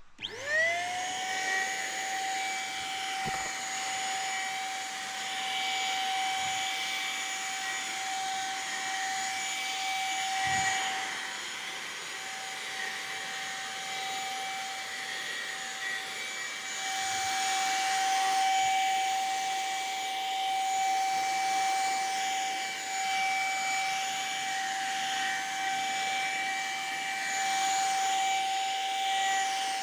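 Handheld electric paint spray gun switched on, its motor spinning up with a quick rising whine and then running at a steady high whine while it sprays paint.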